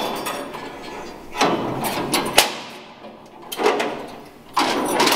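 Stainless steel grill grates and plates being handled, with protective plastic pulled off them: several scraping and rustling noises and a sharp metal clank about two and a half seconds in.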